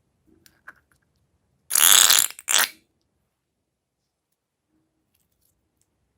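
Slime squelching out of a balloon in a loud, fart-like fluttering burst of about half a second, followed by a shorter second squelch, after a few faint clicks.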